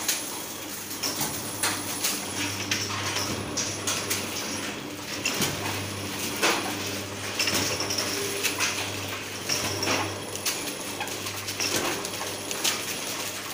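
Four-side sealing machine running: a steady low hum with frequent sharp clicks and light metallic clatter from its rollers, belts and sealing mechanism.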